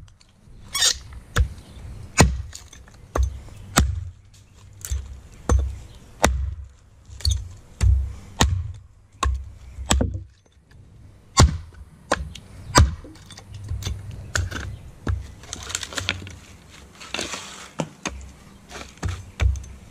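Wenger Blades Beohawk hatchet chopping into a 4-inch log laid on a stump: a series of sharp strikes, about one a second, with a short pause near the middle. Each blow carries a dull thud, and near the end the strikes come with a rougher sound of wood chips tearing loose.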